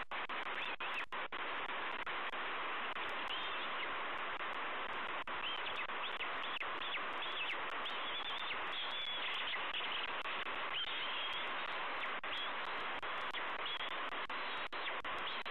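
A run of short, high-pitched chirping calls from a bald eagle nestling, from about three seconds in to about eleven seconds in, as it is fed at the nest. They sit over a steady hiss and scattered sharp clicks.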